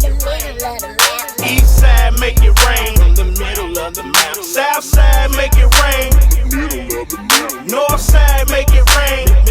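Hip hop instrumental beat: deep bass kicks in a steady pattern with crisp hi-hats and a wavering high melody over them. The bass drops out briefly a few times.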